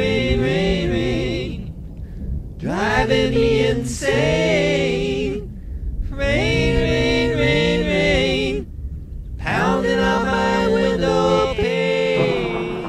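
Multi-part a cappella male vocal harmony, one man singing all the overdubbed voices, in four held phrases with short breaks between them.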